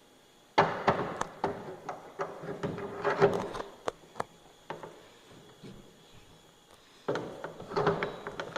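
Clunks, clicks and rattles of a landing-gear wheel being fitted onto its axle against the band-brake hub, in bursts about half a second in, around three seconds in, and again near the end.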